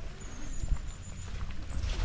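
Wind buffeting the microphone with a low rumble, with scattered light clicks and knocks, likely footsteps on a rough trail.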